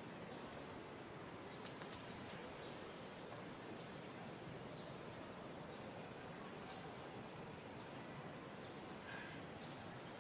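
Steady background hiss with faint, short, high chirps, each falling in pitch, repeating about every half second, and a single faint click a little under two seconds in.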